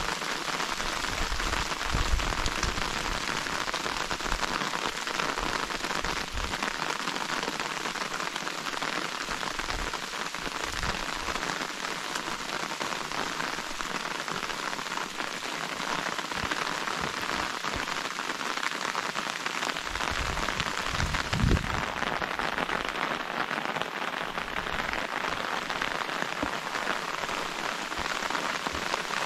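Steady rain falling and pattering on surfaces, an even hiss throughout. A few low thumps stand out, the clearest about two seconds in and again about two-thirds of the way through.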